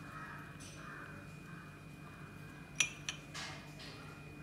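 Small ceramic bowl clinking as chopped nuts are picked out and sprinkled by hand: one sharp clink about three seconds in, a lighter one just after, then a brief rustle of nut pieces.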